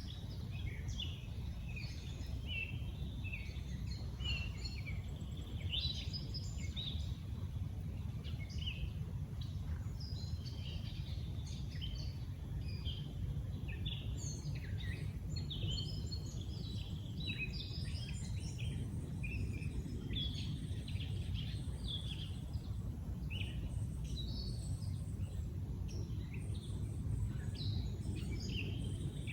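Several songbirds calling and singing at once, short chirps and whistled notes overlapping throughout, over a steady low background rumble.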